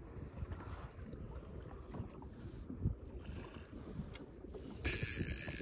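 Small waves slapping and lapping against a kayak hull, with wind rumbling on the microphone. Near the end a louder hissing rush sets in suddenly.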